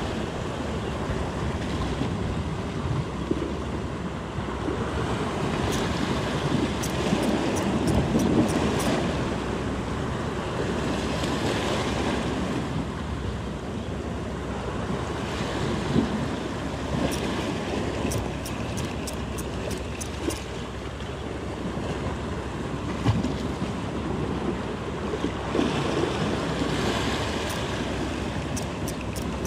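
Sea waves surging and washing over shore rocks, swelling and easing every few seconds, with wind buffeting the microphone. Short runs of faint light clicks come from the fishing tackle as the reel is cranked.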